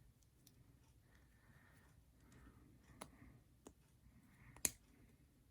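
Faint clicks of small RC car parts being handled and fitted together. A few sharper clicks stand out about three, three and a half and four and a half seconds in, the last the loudest, with soft rustling between them.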